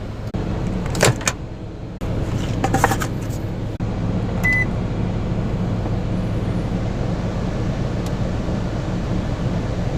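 A few clicks and knocks, then a microwave oven running with a steady hum; a short beep sounds near the middle.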